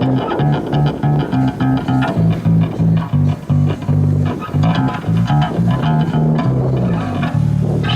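Music led by a bass guitar playing a busy line of short plucked low notes, with fainter higher instrument notes above it. It stops abruptly right at the end.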